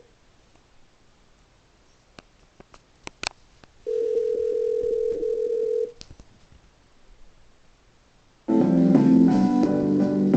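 Telephone ringback tone played through small speakers after a redial: one steady two-second ring about four seconds in. Near the end comes a short, loud burst of musical notes.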